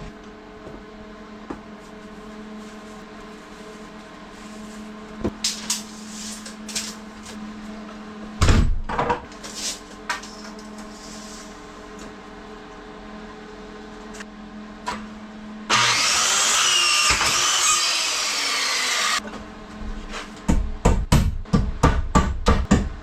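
Wood-framing work: scattered knocks and taps over a steady low hum, then a power tool runs loudly for about three and a half seconds, and near the end a run of quick, even hammer blows, about three a second.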